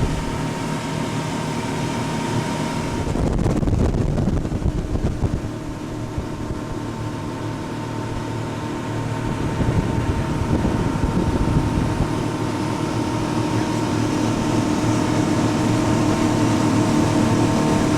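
Motorboat engine running steadily: a constant drone with a held whine on top.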